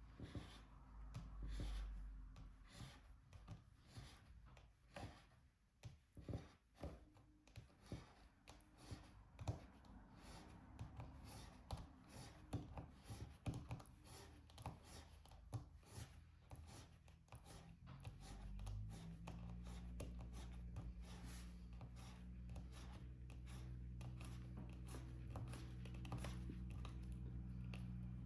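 Faint light clicks and taps, irregular and quick, from a diamond painting pen picking up resin drills and pressing them onto the sticky canvas. About two-thirds of the way through, a steady low hum starts underneath.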